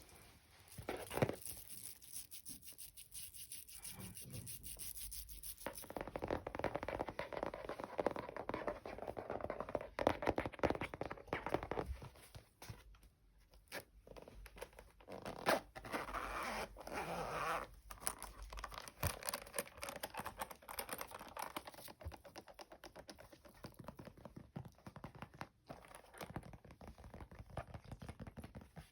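Close-miked scratching and scraping noises made by hand as ASMR triggers, a dense run of small rasps and clicks that grows busier a few seconds in and thins out near the end.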